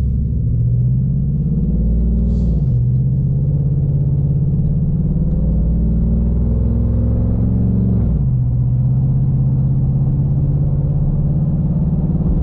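Chevrolet Silverado V8 fitted with an aftermarket Airaid Jr cold air intake, accelerating, heard from inside the cab. The engine note climbs steadily and drops sharply twice, about two and a half and eight seconds in, as the automatic transmission upshifts.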